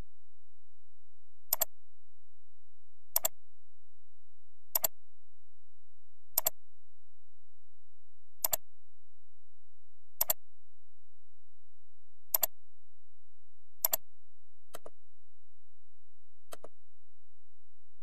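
Computer mouse clicking at intervals of about a second and a half to two seconds, each click a quick pair of ticks as the button goes down and comes up. The last two clicks, near the end, are fainter.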